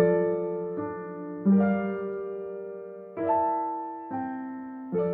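Background piano music: slow chords struck every second or so, each ringing and fading before the next.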